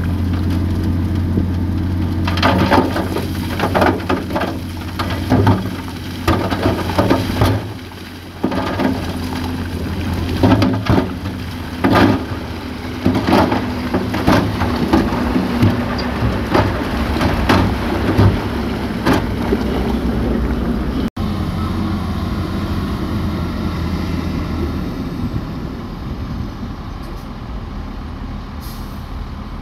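Heavy earthmoving machinery's diesel engine running steadily while rock and soil clatter and crash in a long string of knocks. About two-thirds of the way through the knocks stop abruptly and only the engine is heard.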